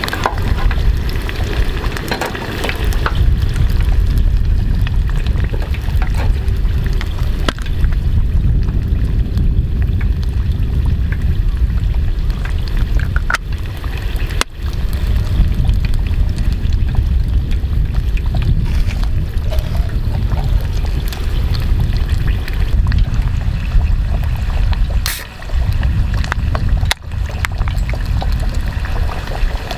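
Hot oil bubbling and sizzling in a small pot as breaded shrimp deep-fry, over a steady low rumble.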